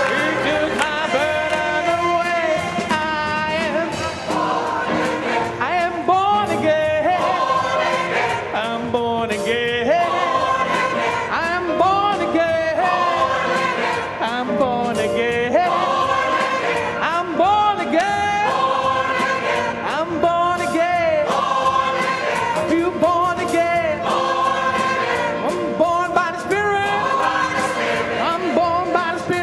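Mixed choir and a female soloist singing an upbeat gospel song, accompanied by a band with electric bass, drums and keyboard.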